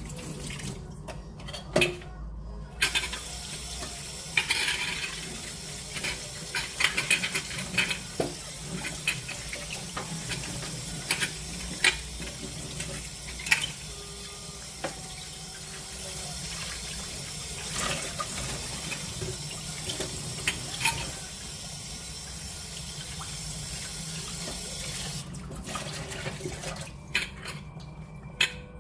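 Kitchen tap running into a sink, with occasional sharp knocks and clinks. The water starts a few seconds in and stops a few seconds before the end.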